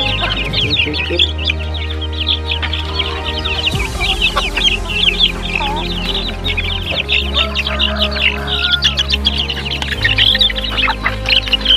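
A flock of young desi chickens clucking and peeping, with rapid high calls throughout, over background music with a steady bass line.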